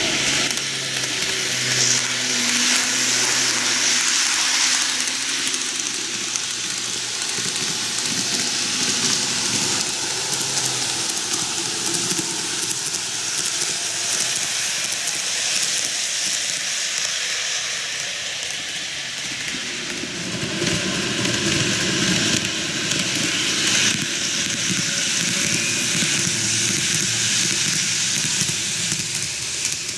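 N-gauge model of a JR 485 series 3000 train running on canted model track: a steady rolling noise of wheels and motor, growing fuller and louder from about twenty seconds in as the cars pass close.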